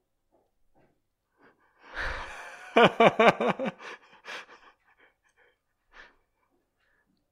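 A person's breathy exhale about two seconds in, then a short burst of laughter, a quick run of about seven pulses within a second.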